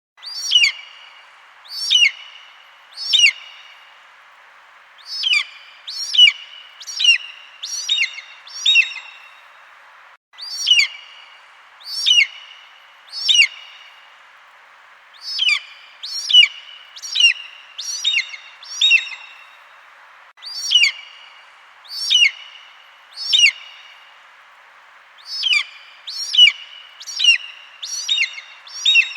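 Eagle calling: short, high, sharply falling notes, three spaced calls followed by a quicker run of about five, the same sequence repeating about every ten seconds over a faint steady hiss.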